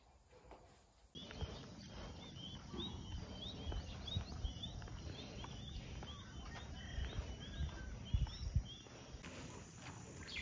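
A small bird chirping over and over, about three short chirps a second, over outdoor background noise and soft footsteps on a concrete sidewalk. The sound starts about a second in, and the chirps stop near the end.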